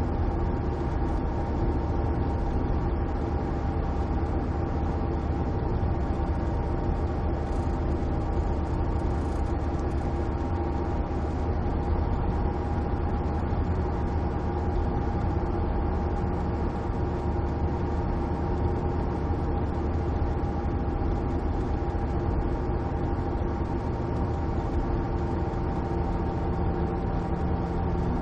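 Car engine and road noise inside the cabin while driving at a steady speed: a constant low drone with a few steady tones over it, and a lower tone joining near the end.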